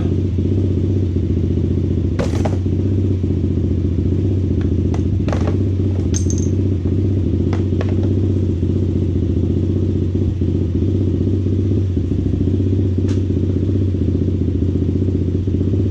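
A steady engine drone at a constant low pitch, with a few sharp metallic clicks and clinks of tools at work on the drain bolts.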